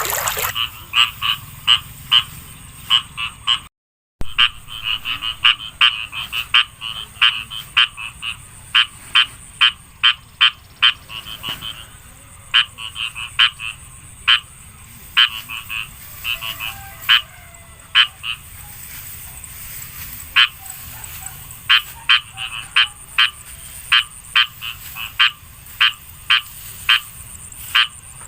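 Frogs calling: a chorus of short, sharp croaks repeated in quick runs of several a second. The sound cuts out for a moment about four seconds in.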